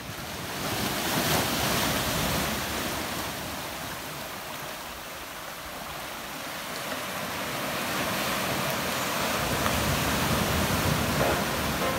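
Sea surf breaking and washing over shoreline rocks, swelling, easing off around the middle and building again. Music begins to come in near the end.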